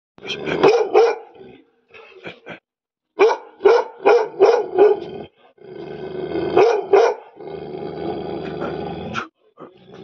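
A 12-month-old Bhotia dog barking deeply in quick bursts of three to five barks, with a longer stretch of continuous growling near the end.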